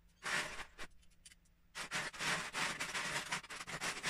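Loose LEGO bricks clattering and rattling as a hand rummages through them in a plastic storage tub: a short rattle near the start, a second or so of near quiet with a few clicks, then steady clattering from about two seconds in.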